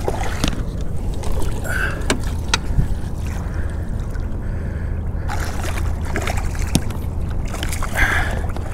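Steady low rumble of wind and water around a fishing boat, with scattered sharp knocks of gear being handled. Near the end comes a brief splash as a hooked striped bass thrashes at the surface beside the landing net.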